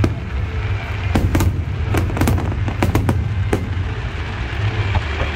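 Aerial fireworks going off in a rapid, irregular series of sharp bangs over a steady low rumble.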